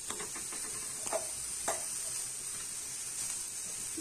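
Tamarind-water gravy sizzling in a kadai as it heats toward the boil, with a steady hiss. A perforated steel ladle stirs it, scraping the pan a few times.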